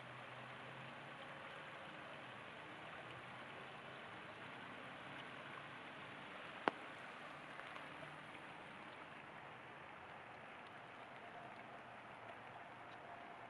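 Steady rain falling, blended with the rush of Parleys Creek, an even hiss. A single sharp tick about halfway through.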